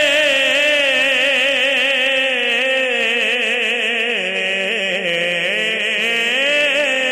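A man singing a manqabat, drawing out one long ornamented note with a wavering vibrato and no pause for words. His pitch sinks lower about four seconds in and climbs back near the end.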